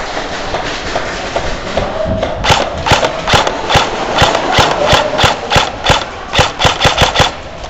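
Airsoft gun firing a string of about fifteen sharp shots, roughly three a second, beginning about two and a half seconds in, over steady background noise.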